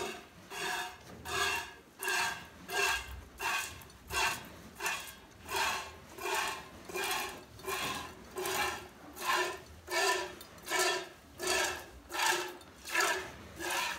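Streams of milk squirting from a cow's teat into a stainless steel pail during hand milking, one hissing squirt about every three-quarters of a second in an even rhythm.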